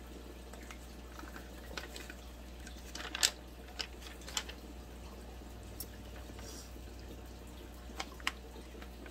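A folded paper instruction sheet being drawn out and opened by hand: soft rustling broken by a few sharp paper crackles, the loudest about three seconds in and a pair near the end.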